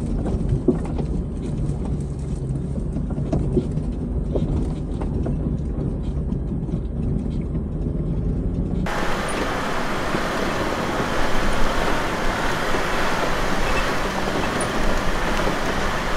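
Cabin noise of a 4x4 driving over a rough gravel forest track: a low engine and road rumble with scattered knocks and rattles from the bumps. About nine seconds in it cuts abruptly to a steadier, hissier rush of tyres on gravel and wind.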